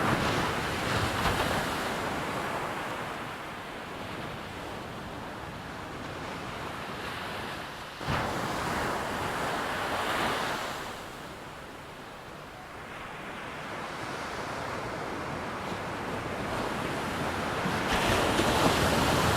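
Ocean surf on a beach, waves washing in and drawing back in slow swells, with a wave breaking sharply about eight seconds in and the surf building louder again near the end.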